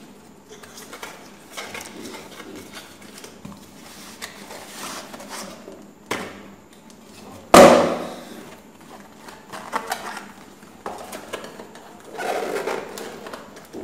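Cardboard packaging being handled: a white inner box slid out of its sleeve and its flap worked open, with intermittent rustling and scraping. One sharp knock about halfway through is the loudest sound.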